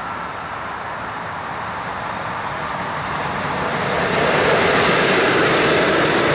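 Train running through on the rails, a rushing noise that grows from about three seconds in and then holds steady and loud.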